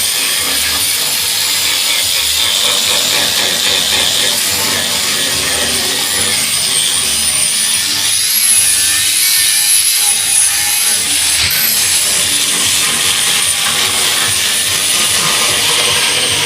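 Electric power tool running steadily on wood, a high whine that wavers in pitch as the tool is loaded, over a hiss of abrasion; from the sanding and shaping under way, most likely a power sander working the pallet wood.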